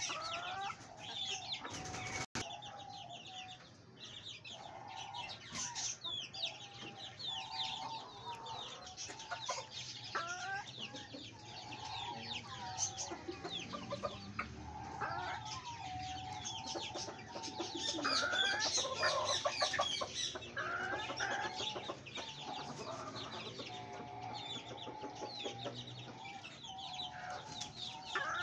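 Chickens clucking: a steady run of short, repeated clucks with many quick high chirps mixed in, loudest and busiest a little past the middle.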